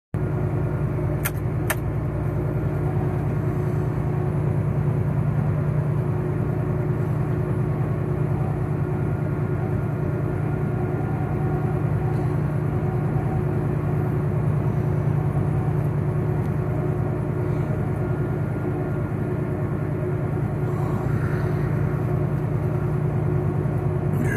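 Steady drone of a Kenworth semi truck cruising at highway speed, heard inside the cab: engine hum and tyre and road noise. Two sharp clicks sound about a second and a half in.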